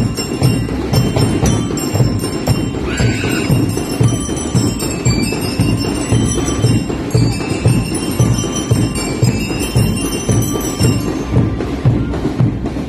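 School marching band playing: bass drums keep a steady beat under a high, ringing bell-lyre melody, which stops about eleven seconds in while the drums carry on.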